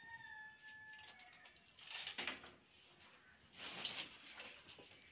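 Dry firewood sticks rustling and knocking together as they are pulled from a heap, in two faint bursts about two and four seconds in. Near the start a faint, long, level tone sounds in the background.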